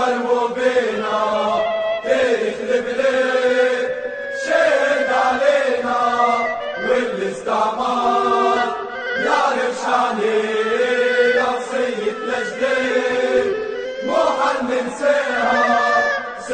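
A large crowd of football ultras chanting a song together, in repeated phrases broken by short pauses.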